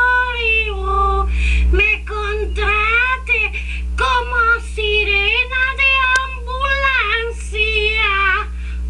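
A woman's high-pitched vocal imitation: a run of short wailing calls whose pitch rises and falls, broken by brief gaps.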